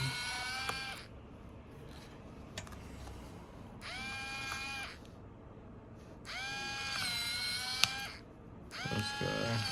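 Small electric tool motor whining in about four short bursts, each spinning up briefly and then holding a steady pitch.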